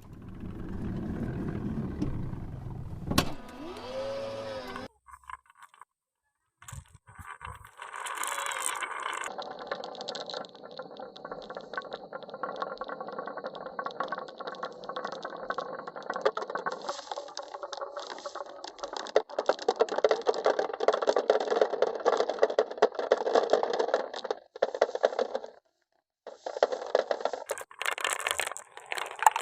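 Marbles rolling and clattering down a wooden marble run, a low rolling rumble at first, then a long stretch of dense rattling with many small clicks and knocks, broken by two short pauses.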